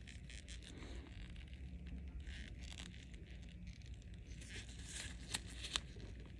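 Faint rustling and brushing of disposable gloves close to the microphone while wooden cotton swabs are pressed on the skin, with two sharp clicks near the end.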